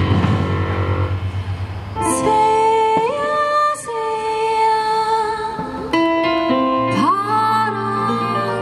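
A woman singing long held notes in a Korean traditional (gukak) style, sliding up into new notes, over an amplified band with guitar. The voice comes in about two seconds in, after a softer instrumental moment.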